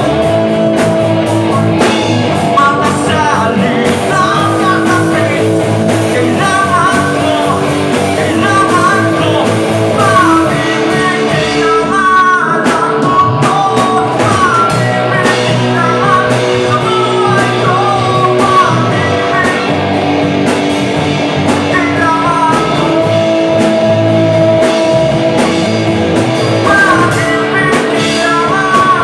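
Live rock band playing: electric guitar and drums, with a wavering lead melody line over them.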